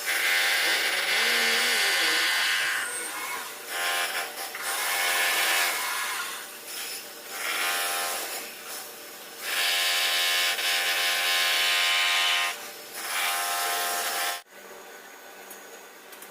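A handheld electric power tool running in repeated bursts of one to three seconds, its motor whining, with short pauses between bursts. It cuts off abruptly near the end, leaving a low steady hum.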